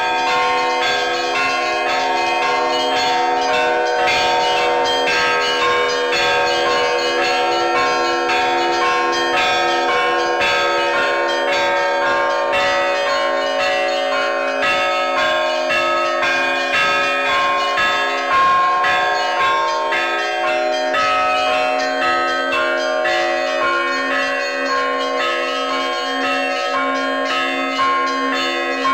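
Orthodox church bells rung in a continuous festive peal: many small bells struck in a quick, busy rhythm over the steady ringing of larger bells.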